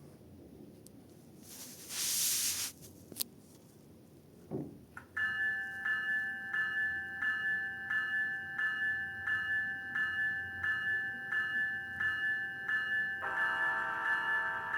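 Sound decoder in an HO scale model cab car playing through its small speaker: a short hiss about two seconds in, then from about five seconds the locomotive bell ringing about twice a second, with the horn sounding over it near the end.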